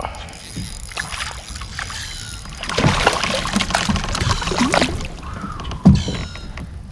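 A hooked crappie splashes at the surface as it is reeled to the side of a fishing kayak, with handling noise on the boat. Near the end there is one sharp knock against the kayak as the fish is lifted in.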